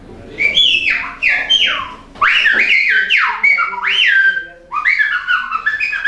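Silbo Gomero, the whistled language of La Gomera, whistled through fingers held in the mouth: quick sliding notes that rise and fall, in three phrases broken by short pauses. It is a whistled greeting, welcoming the listener to La Gomera.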